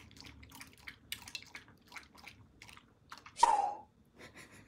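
Corgi lapping at a bowl of aojiru mixed in water: quiet, wet licking clicks at an uneven pace, with one short, louder sound about three and a half seconds in.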